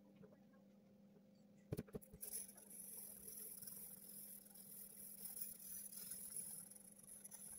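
A drawing tool scratching and rubbing on paper as a pencil drawing is shaded. It starts about two seconds in, after a couple of light taps, and goes on as an uneven scratchy hiss.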